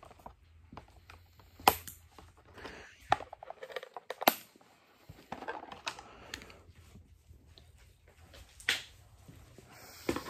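Intermittent clicks, taps and rustling from plastic toy lightsaber pieces and their packaging being handled, with a few sharper clicks standing out.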